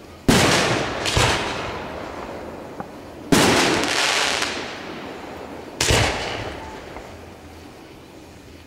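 Aerial firework shells bursting: four sharp booms in about six seconds, each trailing off in a long echoing rumble.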